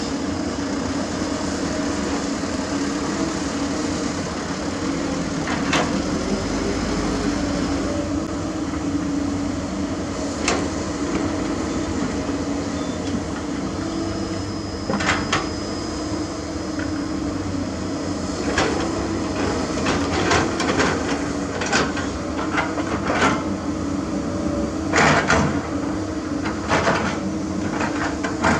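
Komatsu PC200 excavator at work: its diesel engine runs steadily while the steel bucket clanks and knocks on rock and dirt. The knocks come more often in the second half.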